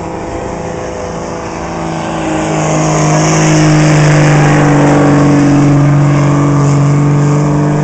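2000 Dodge Ram's 5.9-litre Cummins turbodiesel straight-six running flat out while pulling a sled. It grows louder about two or three seconds in, and its pitch then drops slightly as the sled's load builds.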